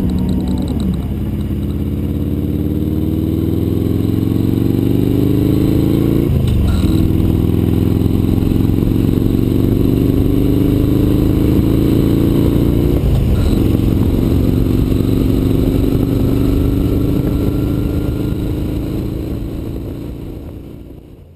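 Harley-Davidson motorcycle's V-twin engine accelerating up through the gears: its pitch climbs steadily, drops at a gear shift about six seconds in and again about thirteen seconds in, then holds steady at cruising speed before fading out at the end.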